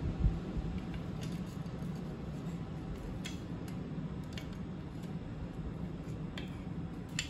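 Steel pliers knocking and clinking against a hot iron bar on an anvil as a scroll is pried out into a corkscrew: a dull knock just after the start, then a handful of light metallic ticks, over a steady low hum.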